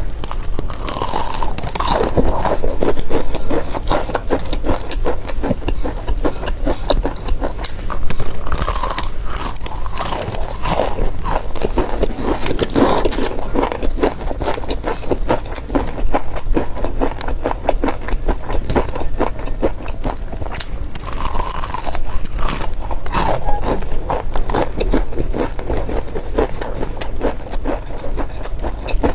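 Close-up biting and chewing of crispy fried chicken drumsticks: a dense, irregular run of crunches and crackles, over a low steady hum.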